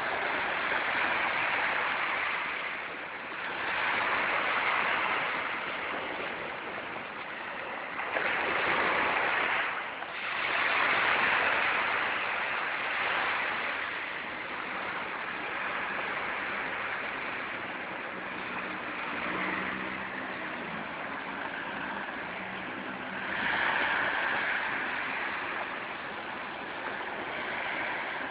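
Sea waves breaking and washing in, the rush swelling and falling back every few seconds. A faint low hum can be heard for a few seconds in the middle.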